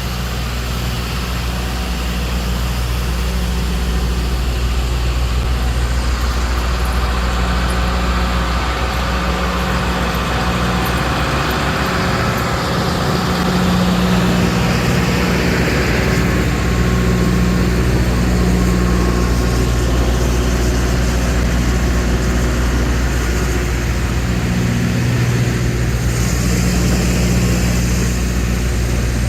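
Diamond drilling rig cutting rock, its engine running with a steady low hum and a hiss that swells around the middle.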